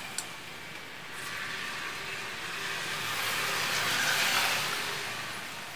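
A motor vehicle passing on the road, its noise swelling to loudest about four seconds in and then fading away.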